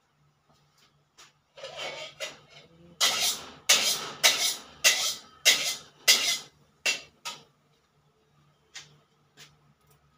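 Metal utensil scraping against cookware at the stove in a quick run of about eight strokes, under two a second, each dying away quickly. The strokes stop about seven seconds in, leaving a few faint ticks.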